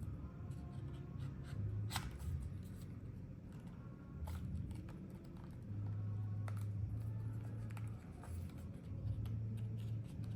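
The plastic housing of an HTC Vive Tracker 3.0 being pried and pulled apart with a spudger: light scraping and handling with a few sharp plastic clicks as the clips give.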